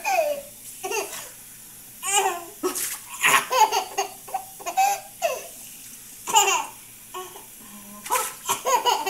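A toddler laughing and babbling in short bursts, over the steady hiss of a running kitchen tap.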